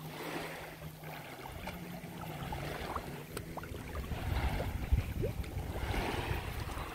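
Shallow lake water sloshing and splashing as a Vizsla dog wades through it.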